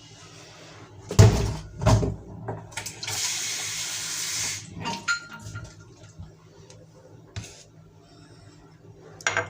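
Two loud knocks of kitchenware, then water running from a kitchen tap for about a second and a half before it stops.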